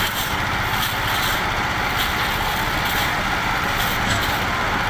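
Engine of a drum concrete mixer running steadily, a continuous low rumble with a fast even pulse and no change in speed.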